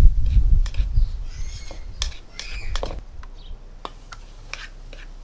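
Hands mixing damp bath bomb powder in a bowl: handling knocks and low rumble in the first second or so, then scattered clicks and a couple of short squeaks, growing quieter.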